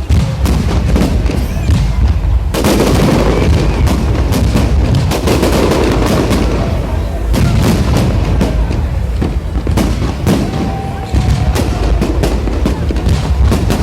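Fireworks display going off overhead: a continuous run of booms and sharp cracks, thickening into dense crackling about two and a half seconds in.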